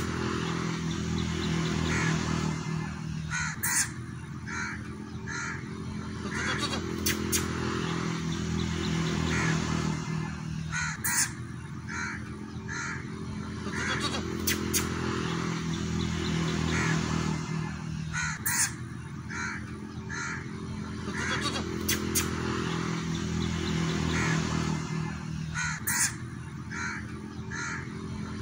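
Small white spitz-type dog giving short, hoarse, cawing barks in quick runs. The same run of barks comes back about every seven or eight seconds over a steady low hum.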